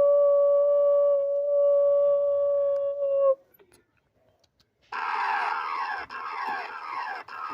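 Electronic emergency-alert attention tone, one steady pitch, holding for about three seconds and then cutting off. After a second and a half of silence, a dense electronic sound of rapidly repeating falling sweeps starts.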